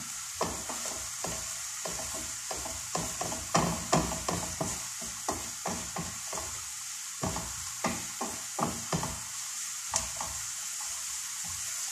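Onion and garlic sizzling in oil in a frying pan, with a steady hiss, while a wooden spatula stirs and knocks against the pan in irregular taps that thin out near the end.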